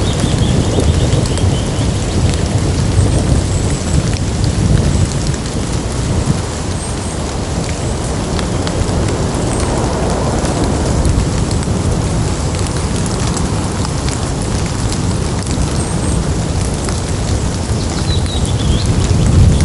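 Rain dripping and pattering from wet leaves, with a continuous low thunder rumble under it; the rumble eases a little midway and swells again near the end.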